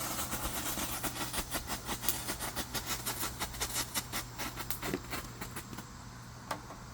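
Fireworks going off in a rapid series of sharp cracks, several a second, that thin out and stop about five and a half seconds in, followed by one last pop near the end.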